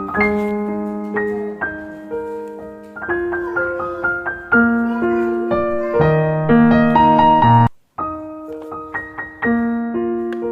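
Piano melody playing as an alarm-clock tune, a run of single notes and chords. It cuts out suddenly for a moment about three-quarters of the way through, then carries on.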